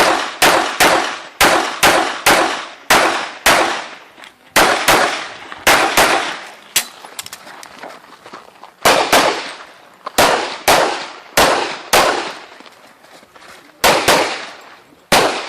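Rapid semi-automatic pistol fire during a practical shooting stage: a long string of single shots, about two a second, sometimes in quick pairs, each with a short echo. There is a pause of about two seconds near the middle, typical of a reload or a move between shooting positions.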